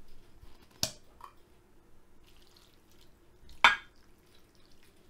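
Salad dressing poured from a small glass jar onto salad in a ceramic dish, with faint liquid dripping and splashing and two sharp clicks, about a second in and a louder one near four seconds.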